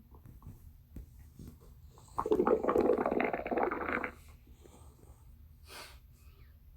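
A stomach growling: one rumbling growl of about two seconds, starting a couple of seconds in.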